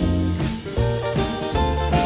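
Background music: an upbeat tune over a bass line, with jingle bells shaking on a steady beat.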